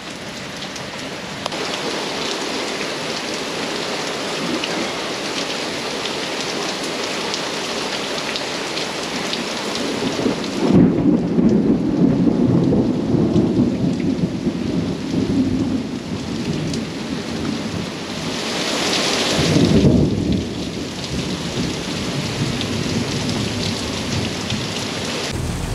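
Heavy rain pouring down steadily. A long rumble of thunder starts about ten seconds in, and a few seconds later comes another loud surge of rumble and rushing hiss.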